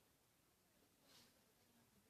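Near silence: room tone, with one faint short hiss about a second in.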